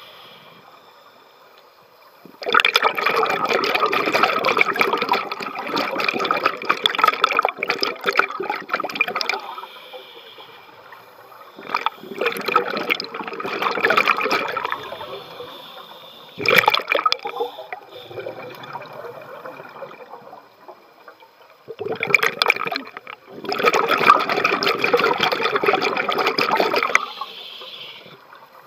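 Scuba regulator exhaust bubbling from a diver's exhaled breaths: four bursts of rushing, gurgling bubbles, the longest lasting several seconds, with quieter gaps between them for inhaling.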